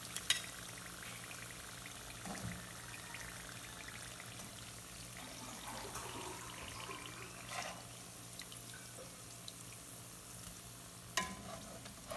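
Sugar-coated saba banana pieces sizzling steadily in hot oil in a frying pan. Metal tongs click against the pan and plate a few times as pieces are lifted out, with a sharp click just after the start and the strongest one near the end.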